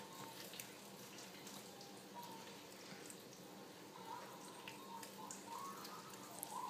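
Faint kitchen background: a steady low hum with a few light ticks and taps.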